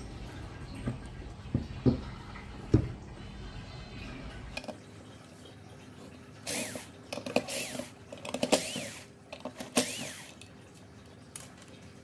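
Cordless drill driving screws into wood: four short runs of the motor, each whining up and back down in pitch. Before them, a few sharp knocks of wood being handled.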